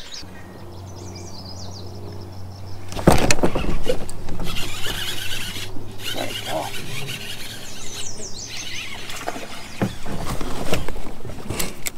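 A small bird chirps in quick runs of falling notes, twice. A steady low hum runs under it until a sudden loud noise about three seconds in, then comes the knocking and rustling of fishing gear being handled on a kayak.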